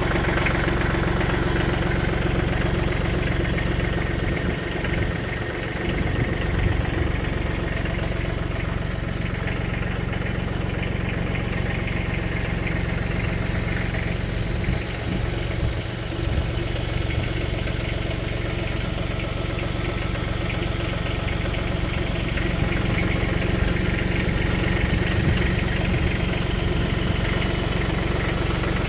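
Engine idling steadily, just after starting.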